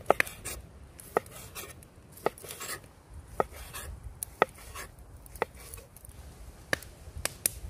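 A chef's knife slicing smoked sausage on a wooden log-slice board. Each cut ends in a sharp knock of the blade on the board, about once a second, with softer cutting sounds in between.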